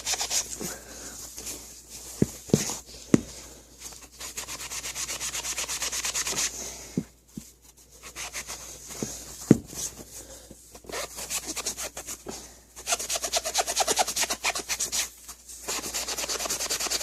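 Damp magic eraser (melamine foam) scrubbed hard against a sneaker's surface to lift a scuff: fast, even back-and-forth rubbing strokes in several spells with short pauses between them. A few sharp knocks, the loudest sounds, come about two to three seconds in and again near the middle.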